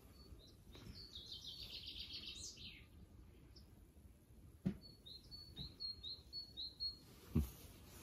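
Songbirds singing: a quick trilled phrase about a second in that ends with an upward flick, then a run of short repeated high notes. Two short low thumps, one in the middle and one near the end.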